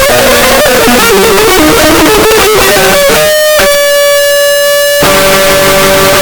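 Loud distorted electric guitar music: bending lead notes, then one note held for about a second and a half, then a fuller sustained chord about five seconds in.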